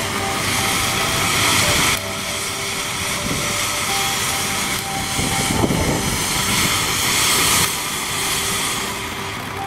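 Ground fountain firework spraying sparks: a steady, jet-like rushing hiss that surges louder for the first two seconds and again from about five to seven and a half seconds in.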